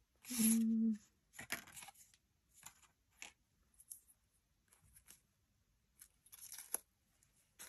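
Paper rustling and brushing in short, scattered strokes as a paper label is handled against a paper pocket on a journal page. A short, steady hummed tone comes about half a second in and is the loudest sound.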